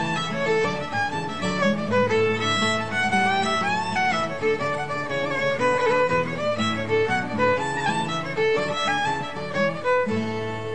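Instrumental background music, a quick-moving melody of many short notes over a low accompaniment, settling into long held notes near the end.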